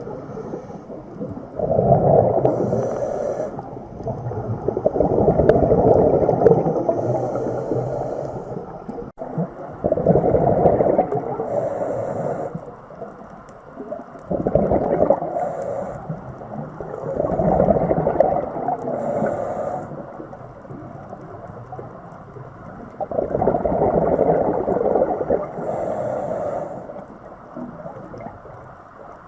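Underwater ocean soundscape: deep, rushing swells that rise and fall every few seconds, with short faint hissing bursts on top.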